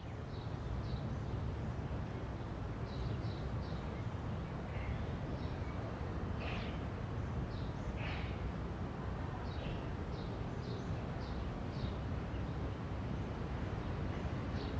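Outdoor ambience: a steady low rumble of distant traffic, with short high bird chirps, a few at a time, throughout.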